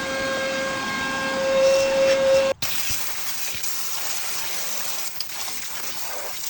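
Water spraying to wash out a jet ski boat's fuel tank: a steady hiss with a high steady whine that cuts off suddenly about two and a half seconds in, then a plainer hissing spray.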